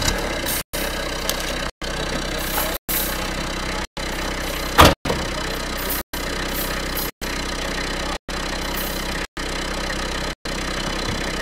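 An engine running steadily, cut by a brief silent gap about once a second. A single sharp, loud knock comes about five seconds in.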